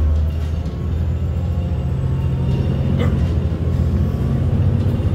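Cummins ISM inline-six diesel of a Neoplan AN440 transit bus pulling hard as the bus accelerates from low speed, a deep, steady exhaust drone that climbs a little in pitch.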